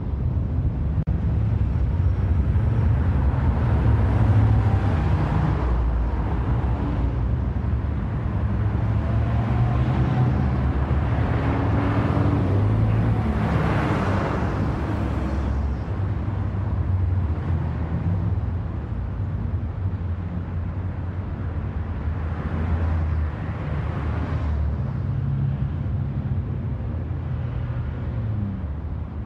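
Road traffic at an intersection: a steady low rumble of car engines, with vehicles passing, the loudest pass about twelve to fifteen seconds in.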